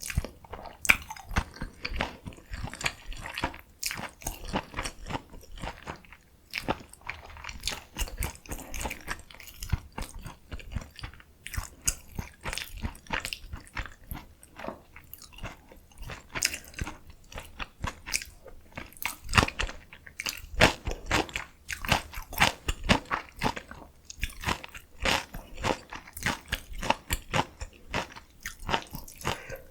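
A person chewing and biting food into a close microphone: a steady, rapid run of crisp crunches and smacks.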